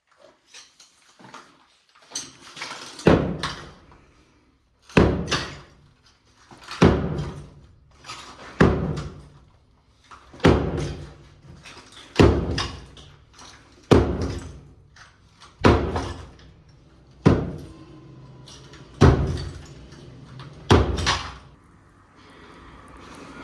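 A heavy hammer striking and breaking up material in demolition work: about eleven hard blows, roughly one every two seconds, after a few lighter taps.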